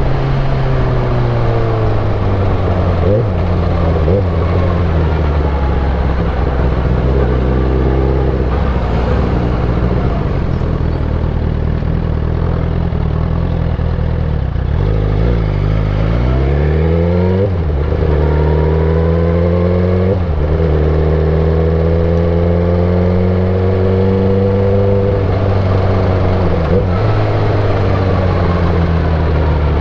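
Suzuki GSX-R1000 K8 inline-four engine running while ridden, its pitch mostly steady at cruise. About halfway through it revs up sharply, drops suddenly as in a gear change, then slowly falls off and picks up again near the end.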